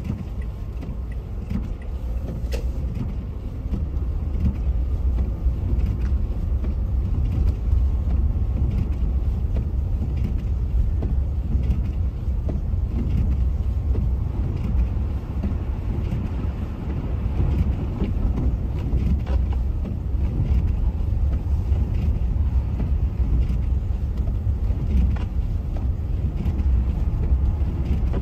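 Steady road noise inside a moving car: a low rumble of tyres and engine that grows a little louder about four seconds in.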